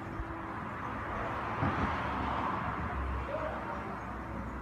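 Outdoor street ambience with a road vehicle passing: a steady rushing noise that swells about halfway through and then eases, over a low rumble.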